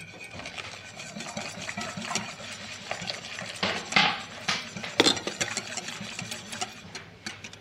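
Wire whisk beating an egg mixture in a ceramic bowl, a steady rapid clatter of the wires against the bowl, with a few louder clinks near the middle. Hot milk is being added slowly while whisking to temper the eggs so they don't cook.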